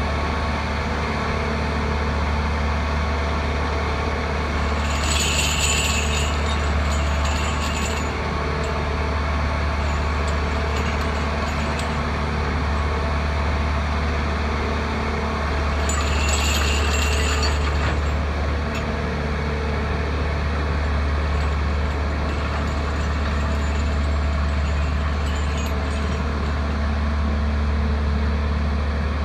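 Engine of a Sperling OTMR-2 track-material reclaimer running steadily with a deep low hum while scrap railroad spikes are unloaded from its extendable hopper onto the ballast. Twice, about five and about sixteen seconds in, a brief high metallic jingling rises over the engine for a second or two.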